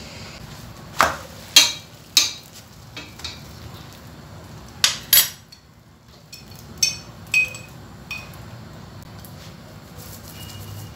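Metal spatula and spoon clinking and knocking against a stainless steel frying pan and a glass oil jar as chapatis are turned and oiled. The sharp, ringing clinks come in small groups of two or three through the first two-thirds, the loudest about two seconds in.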